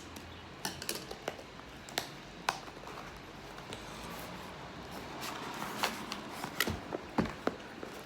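Hands handling items: a dozen or so irregular sharp clicks and taps with light rustling, as of packaging and parts being picked up and set down.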